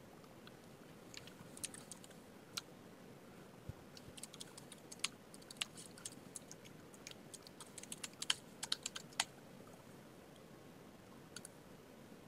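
Faint typing on a computer keyboard: a few scattered keystrokes, then a quick run of keys from about four seconds in until about nine seconds, and two more taps near the end.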